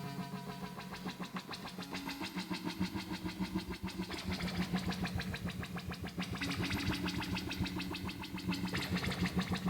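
Hardware synthesizer sounding a steady low drone overlaid with a fast, rough, machine-like pulsing noise texture.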